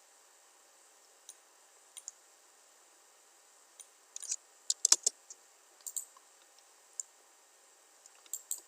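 Computer mouse clicks and keyboard keystrokes: scattered single clicks, with a quick run of keystrokes about four to five seconds in.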